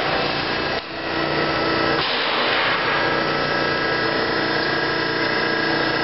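Chayote washing and waxing machine running steadily: a motor hum with a rough rubbing, scraping noise, dipping briefly under a second in.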